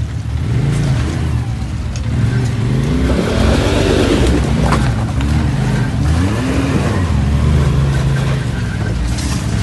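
Polaris RZR XP 1000 side-by-side engine revving up and dropping back again and again as it crawls over boulders, its pitch rising and falling about once a second.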